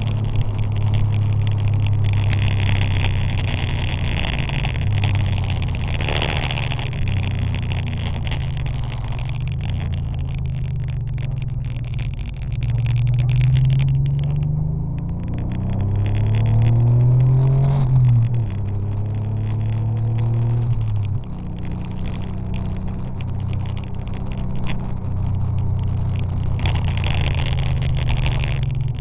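Porsche 911 (964) air-cooled flat-six under way on a wet track, climbing in pitch as it accelerates and dropping back sharply at gear changes, about 18 and 21 seconds in. Over it runs a steady hiss of tyres on wet tarmac.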